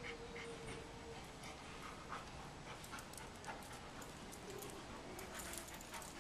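Large black dog panting softly while being handled, with faint scattered clicks as it shifts its feet on the hard floor.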